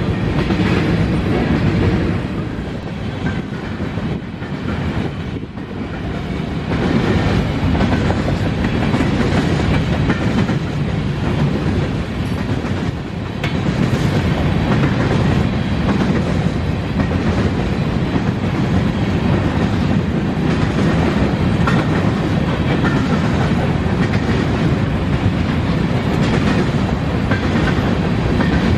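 Empty covered hopper cars of a BNSF unit grain train rolling past, a steady rumble of wheels on rail that dips in loudness a few seconds in.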